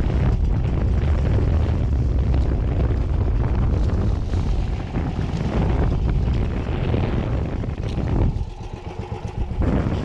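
Small motorized fishing boat under way at sea: a steady low engine rumble mixed with wind buffeting the microphone. It eases somewhat about eight seconds in.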